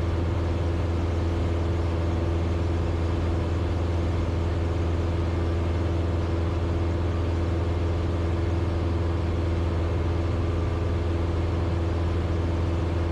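Cessna 172's piston engine and propeller droning steadily in flight, a constant low hum with no change in pitch.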